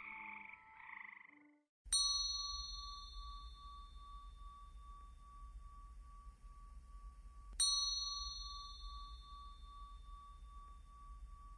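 A bell struck twice, about six seconds apart. Each strike rings on as one wavering tone that slowly fades. Before the first strike, the last notes of intro music die away.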